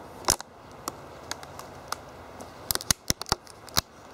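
Sharp clicks and knocks right at the microphone as a cat brushes against the camera: one about a third of a second in, then a quick run of them near the end.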